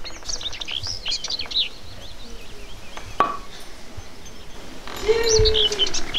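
Garden songbirds chirping and singing in quick runs of rising and falling notes, with a single sharp knock about three seconds in. A steady held note comes in near the end.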